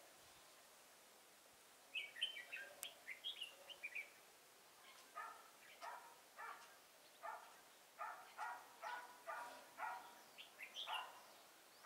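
Red-whiskered bulbul giving short, quick chattering song phrases about two seconds in and again near the end. Between them comes a steady run of lower, short calls about two a second.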